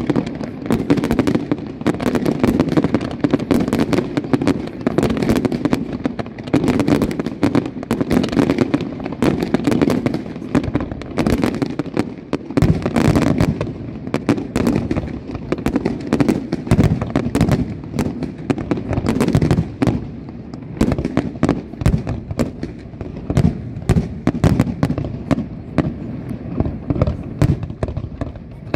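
Fireworks display: a rapid, unbroken run of bangs, pops and crackles from shell bursts and spark fountains.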